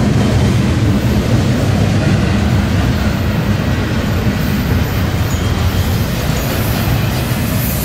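Double-stack intermodal freight train rolling past: a steady, loud low rumble of its loaded well cars' wheels on the rails.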